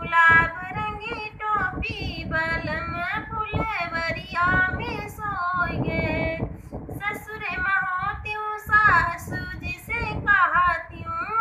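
A woman singing a Hindi folk dance song (naach geet) in a high, melodic voice, with long held notes.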